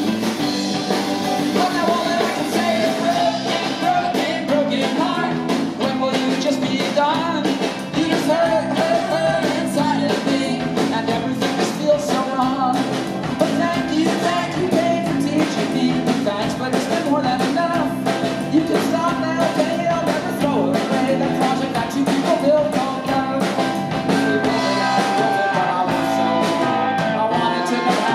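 Live rock band playing a song: a man singing over strummed acoustic guitar, a drum kit keeping a steady beat, and keyboard.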